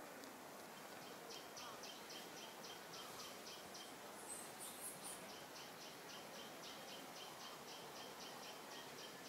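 A faint, rapid, even series of short high chirps, about four or five a second, starting about a second in and breaking off briefly around the middle, over a steady background hiss. A few higher, thinner chirps come in that pause.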